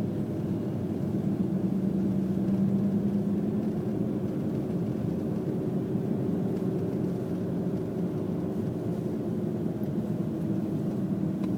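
Audi quattro's engine running at a steady low hum with tyre and road noise, heard from inside the car's cabin while driving.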